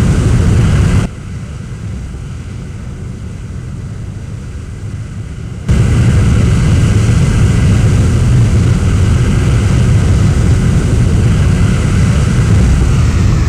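Fighter jet engine roar, a loud, steady rumble. It drops abruptly to a quieter level about a second in and comes back just as abruptly near six seconds in.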